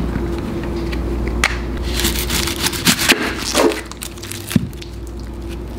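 Kitchen knife cutting mushrooms on a cutting board: a few sharp knocks of the blade on the board about a second and a half apart, with rustling and crunching between them.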